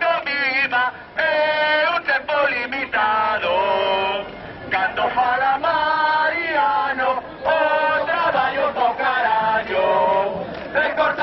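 Crowd of protest marchers chanting slogans together, phrase after phrase, with loud close voices.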